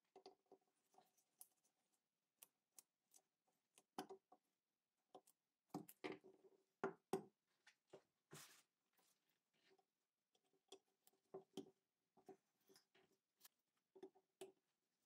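Scattered small clicks and knocks of a screwdriver and metal gun parts being handled and fitted on a wooden rifle stock, with a cluster of louder knocks about midway.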